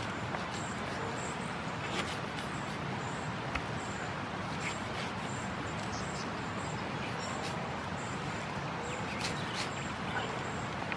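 Outdoor background of steady hiss with a short high chirp repeating at an even pace, and faint scattered clicks and scrapes of a knife cutting the hide off a wild dog carcass.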